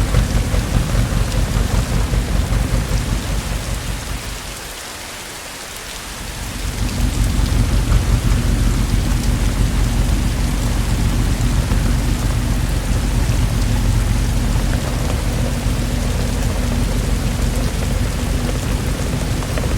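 Steady heavy rain with a deep, continuous rumble of thunder underneath. About four seconds in, the rumble and the overall level fade down, then build back up about two seconds later.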